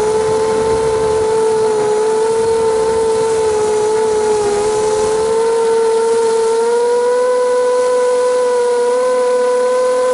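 Brushless motors and propellers of a ZMR250 250-size FPV quadcopter whining steadily in flight, heard close up from a camera mounted on the frame. The pitch dips slightly about halfway through and then rises a little as the throttle changes.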